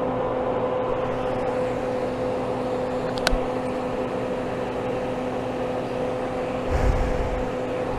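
Steady hum of a running electrical machine, with a level tone in it. There is one sharp click about three seconds in and a brief low rumble near the end.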